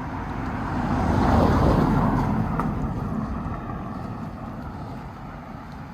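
A road vehicle passing close by, its noise swelling to a peak about a second and a half in and then fading away.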